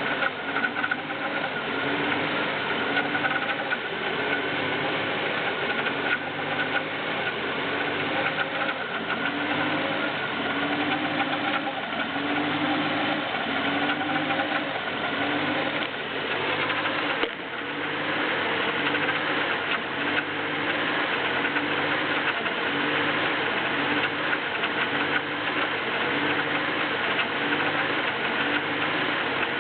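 BMW E36 318is's M44B19 four-cylinder engine running on a cold start with a metallic rattle, its idle pulsing up and down about once a second; the owner does not know what the metal sound is and reports the revs hunting between 1000 and 1500 rpm.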